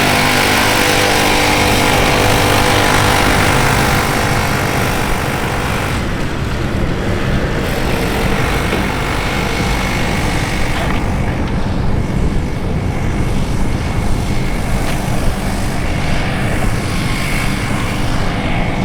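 Car engine and exhaust running hard, strongest over the first four seconds or so, then settling into a steadier, lower running noise.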